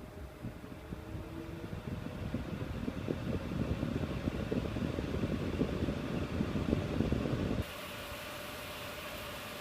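Gigabyte GeForce GTX 760 WindForce graphics card fans running, with a faint steady hum and a low rumble of rushing air that grows louder over several seconds. Near the end the sound changes suddenly to a steadier, hissier whir.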